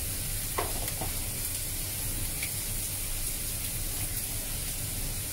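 Cauliflower florets sizzling steadily in a frying pan with oil and a little dried-shrimp soaking water, with two faint ticks about half a second and a second in.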